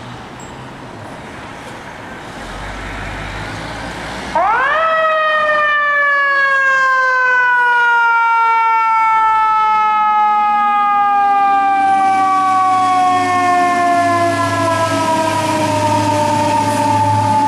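Ladder fire truck's siren starting suddenly about four seconds in, rising sharply in pitch and then falling slowly in one long wail. Over the street traffic noise that comes before it, the truck's engine rumbles louder near the end as it passes close.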